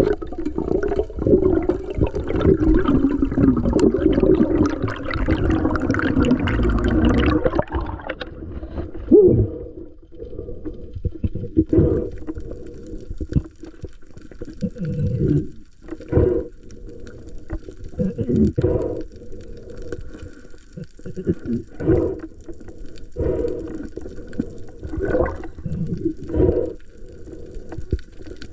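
Muffled water sounds as heard by a camera underwater or at the surface. A dense rushing sloshing fills the first eight seconds, then gives way to short splashy surges every second or two.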